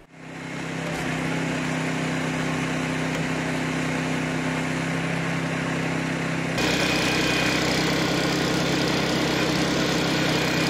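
Small petrol engine of a hydraulic rescue-tool power unit running steadily at a constant speed; the sound steps up louder about six and a half seconds in.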